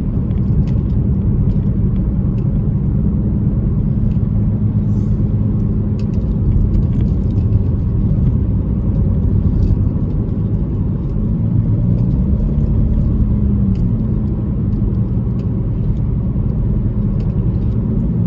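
Car driving, heard from inside: a steady low rumble of engine and road noise. The engine pitch rises and falls briefly about two-thirds of the way through.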